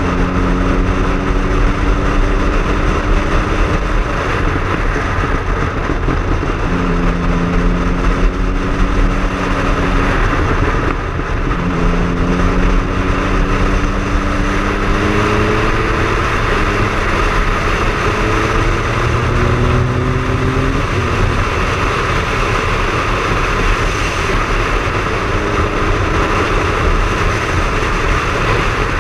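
Triumph Speed Triple's three-cylinder engine on the move, its pitch climbing in several slow rises that break off at the gear changes, under a loud, steady rush of wind.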